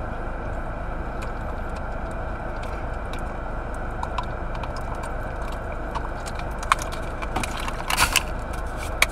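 Steady running hum inside a car, with a few faint clicks and swallows as water is gulped from a plastic water bottle in the second half.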